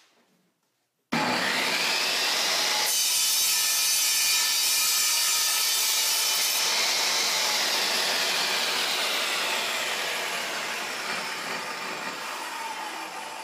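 Table saw switched on about a second in and running at full speed while a wooden fence strip on the miter sled is cut through at 45 degrees. After the cut the saw is switched off and winds down, its whine slowly falling in pitch and level.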